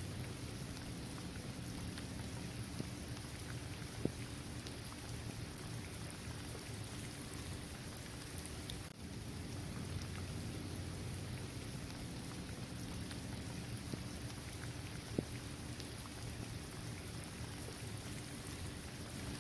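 Steady rain falling on a hard court surface, trees and grass, with a low rumble beneath. Two single louder drops stand out, about four seconds in and again near three-quarters of the way through.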